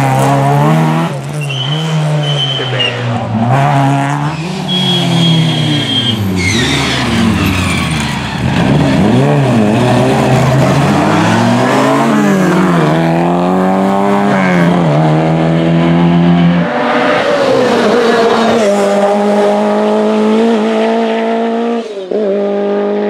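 Rally car engines revving hard and dropping off again and again through tight hairpins, with quick gear changes and three short tyre squeals in the first several seconds. In the later part one engine holds a steady high pitch.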